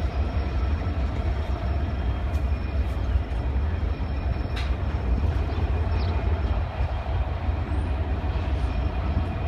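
Freight train of open-top hopper cars rolling past close by: a steady rumble and rattle of wheels on rail, with a couple of brief high squeaks about halfway through.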